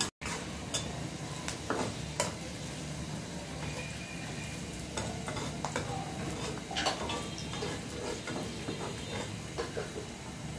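Chopped onions and green chillies sizzling steadily in hot oil in a black iron kadai. A metal spatula scrapes and taps against the pan now and then as they are stirred.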